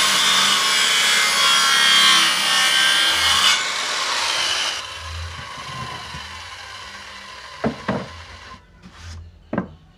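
Handheld electric circular saw cutting through a wooden board, loud until the cut ends about three and a half seconds in; the saw then runs down and dies away. Near the end come a few sharp knocks of boards being handled.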